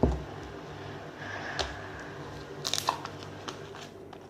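Homemade fluffy slime being worked and squished, with soft crackles and a few sharp clicks.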